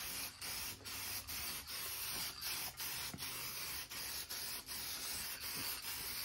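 Aerosol spray-paint can hissing as black paint is sprayed onto a sandblasted metal headlight bezel. The hiss is broken by short gaps a few times a second.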